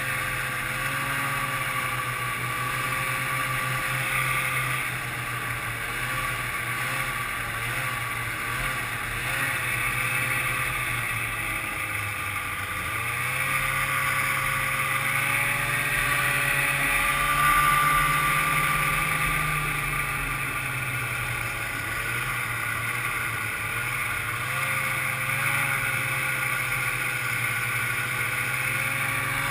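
1995 Ski-Doo Grand Touring snowmobile's two-stroke engine running at steady trail speed, heard from on board the sled. Its pitch wavers a little with the throttle, and it grows louder about halfway through, then eases back.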